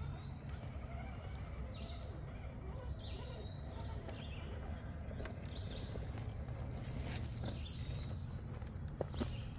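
Scale RC rock crawler creeping over rock at crawl speed, its electric motor and drivetrain giving a low steady hum, with a couple of sharp clicks near the end. Small birds chirp short high notes every second or so.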